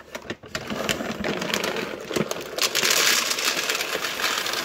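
Small dry dog kibble poured from a bag into the plastic food hopper of a Kalado automatic pet feeder. Scattered clicks and rustles come first, then about two and a half seconds in a dense, steady rattle of pellets hitting the plastic.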